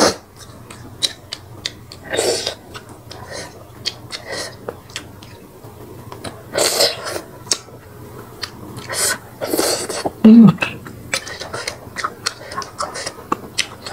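Close-miked mukbang eating of snakehead fish porridge: many small wet mouth clicks and smacks while picking meat off the fish head with chopsticks, a few louder breathy slurps, and a brief low hum about ten seconds in, the loudest moment.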